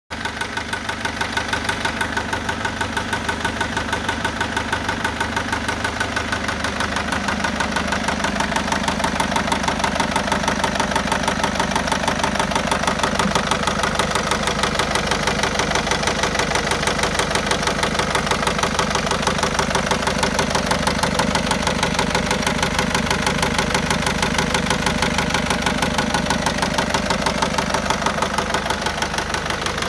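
Peugeot-Citroen 1.6 HDi four-cylinder turbodiesel running steadily with an even, rhythmic knock, which the owner takes for a bottom-end knock.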